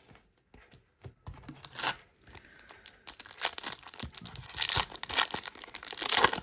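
Foil trading-card pack wrapper being torn open and crinkled in the hands: a few small crackles at first, then from about halfway a dense, loud run of tearing and crinkling.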